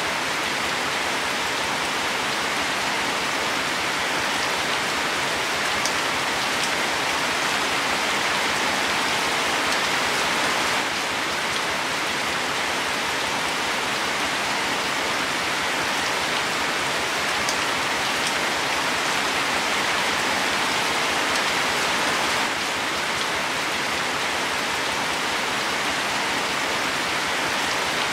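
Steady rain falling on leafy plants: an even, unbroken hiss.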